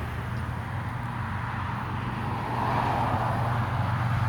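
Road traffic noise: tyre and engine sound of vehicles on the road, one car swelling past about three seconds in, over a steady low hum.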